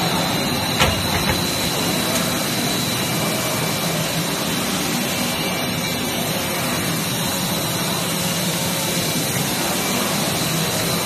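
Steady factory machinery noise of an ABS plastic pelletizing line running, with a thin high steady whine over it and a single sharp click about a second in.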